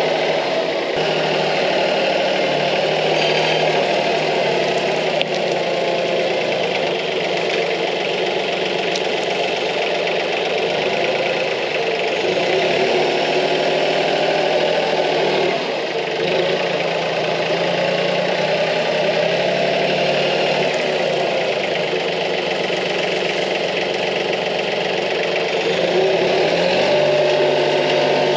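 Branson 2515h compact tractor's diesel engine running steadily while its front loader works at a tree stump. The engine note sags about halfway through and rises again near the end.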